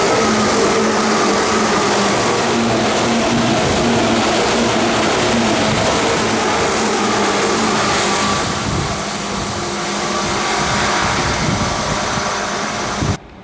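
Tokyu 8500 series electric train running, its traction motors giving a loud whine over rumbling running noise, the whine's pitch sinking slightly. The sound drops abruptly to a much quieter background near the end.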